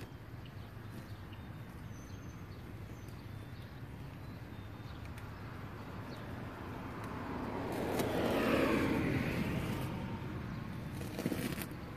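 A car passing by, its noise swelling to a peak about two thirds of the way through and fading away as the pitch drops, over a steady low outdoor hum. A short knock near the end.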